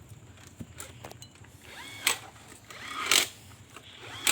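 Hand tools working on engine parts: a few light metal clicks, then two short ratcheting bursts about a second apart.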